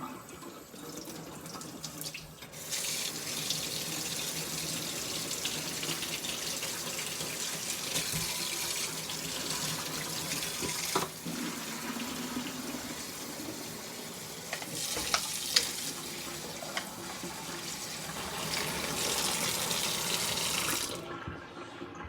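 Kitchen tap running hot water into a water bottle: the water starts a few seconds in, runs steadily, and is turned off about a second before the end, with a few light knocks along the way.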